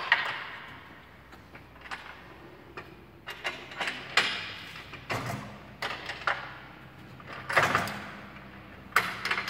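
Scattered metal clicks and knocks as a Riello diesel burner's safety hooks are released and the burner is pulled out of its housing, with a longer sliding sound near the end.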